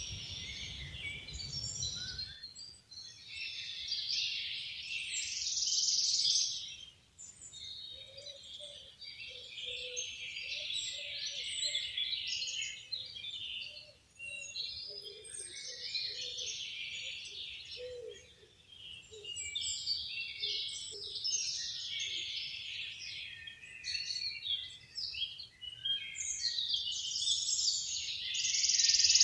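Songbirds singing: phrases of rapid warbling notes lasting a few seconds each, repeated with short gaps throughout. From about 8 to 18 seconds in, a lower run of short, evenly spaced notes sounds under the song.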